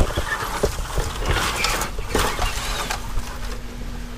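Fibreglass stepladder carried through a hedge: leaves and twigs rustling and scraping along its rails, with knocks of the ladder, the sharpest right at the start.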